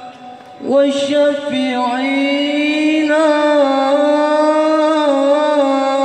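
Male lead singer of a marawis ensemble chanting one long held, ornamented vocal line, swooping up into it about a second in and sustaining it with slight wavers. One or two low drum knocks sound as the line begins.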